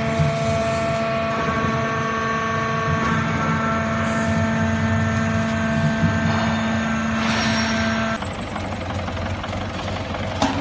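Hydraulic foam scrap baler running: a steady machine hum with several held whining tones that shift pitch slightly now and then. A hiss comes about seven seconds in, then the tones stop and a lower, rougher running noise is left, with a sharp click near the end.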